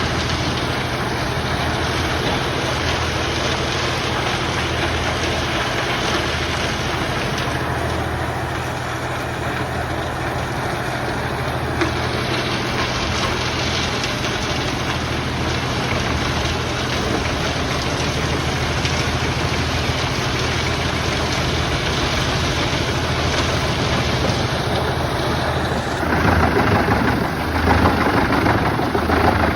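Tractor-driven Eschlböck Biber 92 wood chipper powered by a Fendt 1042 Vario, running steadily with a low engine hum while logs are chipped. The sound gets louder and rougher a few seconds before the end.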